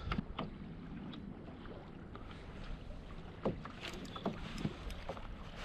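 Water slapping against a plastic kayak hull, with low wind rumble on the microphone. There are a few light knocks and ticks scattered through it, most of them around the middle.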